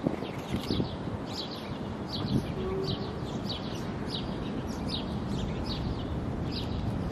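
A small songbird calling a short, falling chirp over and over, about twice a second, over a steady background hiss of outdoor noise.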